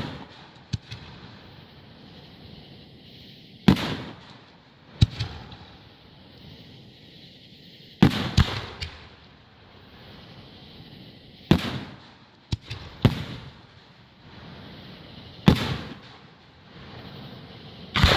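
Aerial fireworks at close range: about nine sharp bangs every few seconds, some in quick pairs, each trailing off after the blast.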